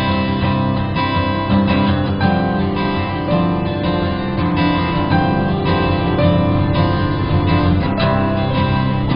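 Instrumental music led by guitar, running steadily with notes changing every fraction of a second.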